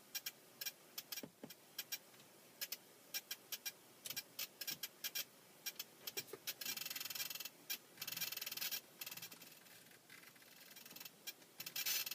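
Dice Duo iPod interface ticking with nothing connected to it: irregular sharp clicks, a few a second. They run together into fast crackling runs twice past the middle and again at the very end.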